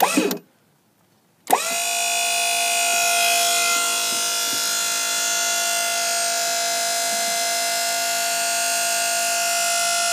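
Sunstream SunLift boat lift's battery-powered hydraulic pump motor: a short burst right at the start, then about a second and a half in it starts and runs with a steady whine, driving the lift.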